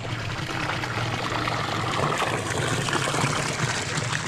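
Water pouring from a spout into a hot-spring bathing pool: a steady splashing that swells slightly about a second in.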